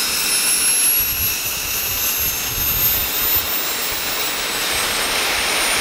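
Small turbojet (microturbine) engine running loud and steady: a rushing blast of exhaust with a high-pitched turbine whine that climbs slowly in pitch as the engine spools up.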